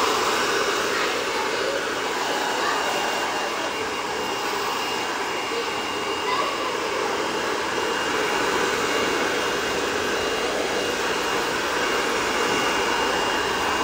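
Handheld hair dryer running steadily: a constant rush of blown air with a thin, steady whine on top.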